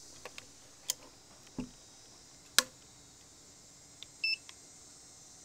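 A few separate light clicks and knocks from handling a PCP air rifle's action, then a short electronic beep from a digital trigger pull gauge about four seconds in.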